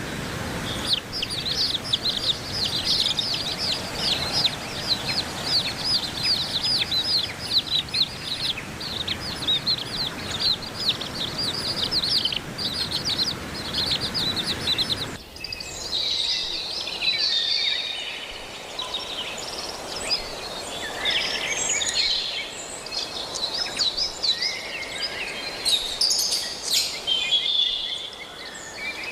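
Wild birds chirping: a dense run of rapid, repeated high chirps over a low rumble, changing abruptly about halfway to more scattered, varied calls.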